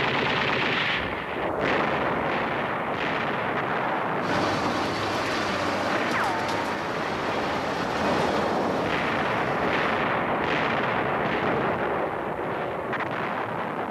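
Battle sounds of artillery fire and explosions in a continuous dense rumble, with a short falling whistle about six seconds in.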